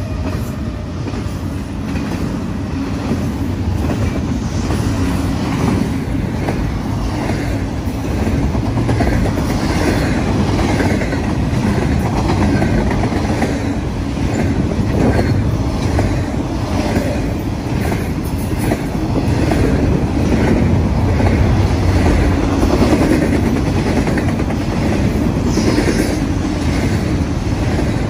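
Double-stack intermodal freight cars rolling past close by: a steady heavy rumble with repeated clacking of steel wheels on the rails.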